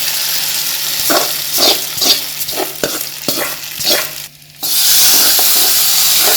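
Hot coconut-oil tempering with fried coconut, dried red chillies and curry leaves sizzling, with a spatula scraping and knocking on the pan as it is emptied into the curry. The sizzle dips briefly about four and a half seconds in, then comes back louder.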